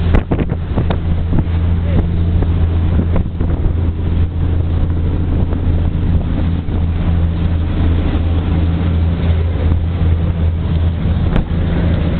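Ferry's engines running with a steady low drone, mixed with the rush of the churning wake and wind buffeting the microphone.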